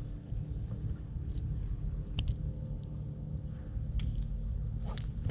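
Faint clicks and small rustles of hands working a fishing line, a few sharp ticks among them, over a steady low rumble.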